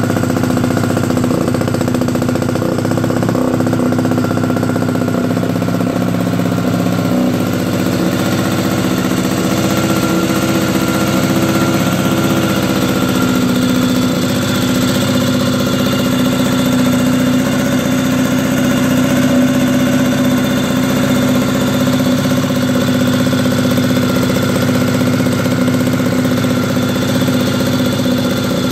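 Villiers two-stroke single-cylinder engine of an Excelsior motorcycle running steadily at idle.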